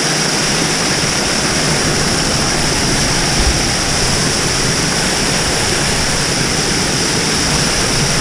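A waterfall pouring over a mountain bike and straight onto the camera: a loud, steady rush of falling and splashing water, with a brief low thump about three and a half seconds in.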